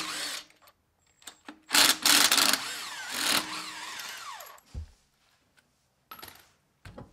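Cordless impact wrench spinning lug nuts off a wheel in several short runs. The strongest run is about two seconds in, with a whine that wavers as the already-loosened nuts run off the studs.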